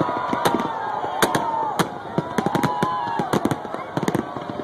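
Fireworks display: shells bursting in quick succession, many sharp bangs and crackles a few times a second, over wavering, gliding tones.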